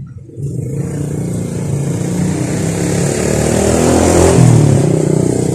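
A motor vehicle's engine passing close by on the street, growing louder to a peak about four seconds in, then easing off slightly.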